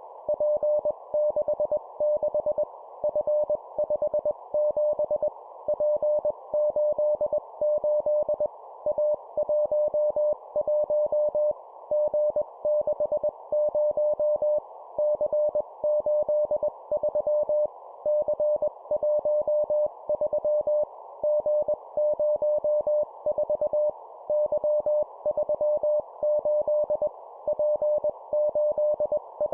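Morse code (CW) sent at 20 words per minute as a single steady beeping tone keyed into dots and dashes, in three-character groups of a letter and two numbers separated by short pauses. A steady band of hiss runs behind the tone.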